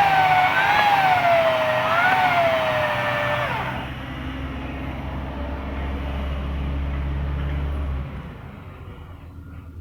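A passing motor vehicle: a pitched whine that rises and falls about once a second, then glides down and stops about three and a half seconds in. A low steady rumble follows and cuts off near the end.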